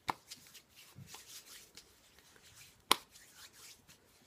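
Hands rubbing thick body butter into the skin: soft, faint rubbing, with two sharp clicks, one at the start and a louder one about three seconds in.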